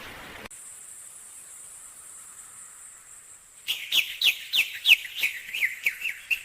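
A bird chirping rapidly: a run of about ten quick, downward-sliding chirps, about four a second, starting about three and a half seconds in. Before the chirps there is a faint steady high-pitched tone.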